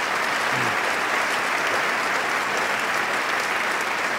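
A large audience applauding at a steady, sustained level.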